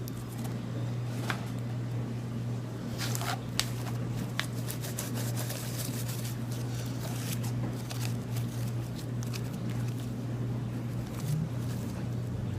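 Hands squishing and stretching sticky slime, with scattered small pops and clicks, over a steady low hum.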